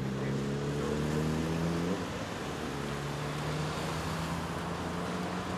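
Suzuki sport motorcycle engine idling, its pitch creeping up slightly over the first two seconds, with a brief break about two seconds in before it settles into a steady idle.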